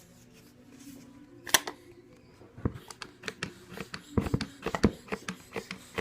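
Hands working a container to get a thick slime ingredient out: one sharp click about a second and a half in, then a run of irregular clicks and knocks.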